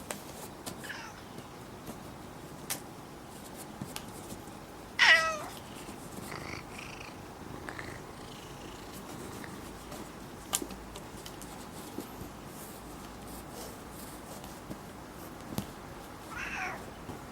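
Domestic cat meowing: one loud, short meow about five seconds in and a few softer meows before and after, with faint scattered clicks and taps.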